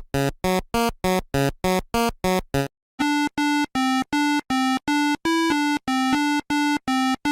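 Synthesizer playing short, evenly spaced electronic notes, about three a second. First comes a low run that alternates between two pitches; after a brief pause near the three-second mark, a higher run follows, mostly on one repeated note.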